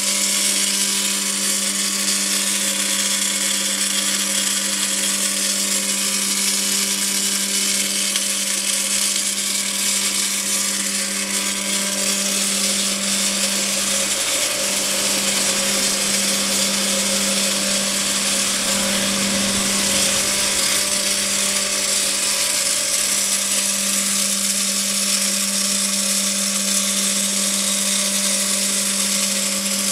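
Double-head circumferential seam welding machine welding a steel LPG cylinder body: a steady welding-arc hiss over a constant low machine hum.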